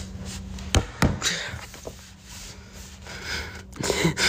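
Rubbing and scraping handling noise close to the microphone, with two sharp knocks about a second in.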